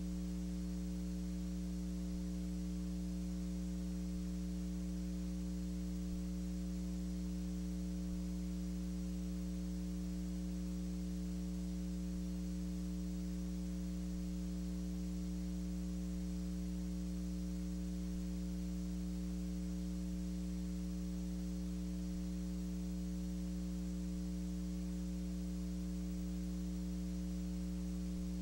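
Steady electrical mains hum with its overtones and faint hiss, unchanging throughout. No other sound.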